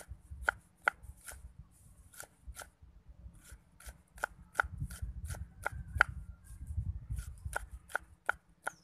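Large kitchen knife chopping green beans on a thick wooden chopping block: a steady run of sharp knocks, about two to three a second, that stops just before the end.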